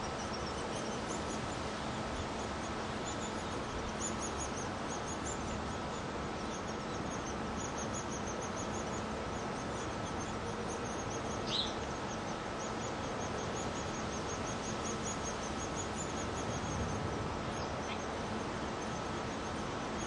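Outdoor background noise with a faint, evenly repeated high-pitched ticking throughout, and a single short bird chirp about eleven seconds in.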